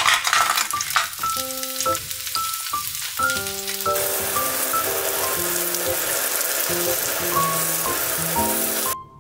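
Frozen chicken breast cubes dropped into hot oil in a rectangular frying pan, with a few sharp clicks as they land, then sizzling steadily as they fry. The sizzle grows stronger about four seconds in and cuts off abruptly near the end.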